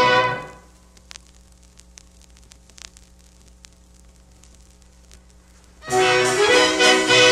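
Orchestral film-soundtrack music fades out about half a second in. A gap of faint scattered clicks and low hum follows, the surface noise of a vinyl record between tracks. The next track starts with full orchestra about six seconds in.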